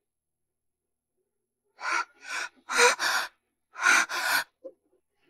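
A woman breathing hard, about four loud, quick breaths starting about two seconds in.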